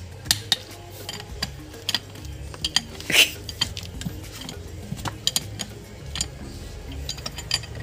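Metal tools clinking and tapping against a Hyundai Getz steering rack and pinion as a spanner works on the pinion valve housing: irregular sharp clicks, with one louder ringing clink about three seconds in.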